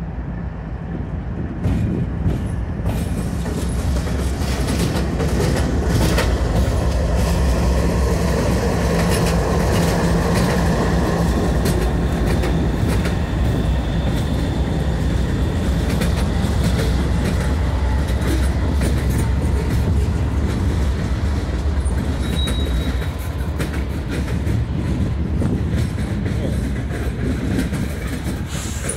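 Norfolk Southern freight train passing close by: diesel locomotives rumble past, then loaded freight cars follow with steady clicking and clacking of wheels over the rail joints. A brief thin wheel squeal comes about three-quarters of the way through.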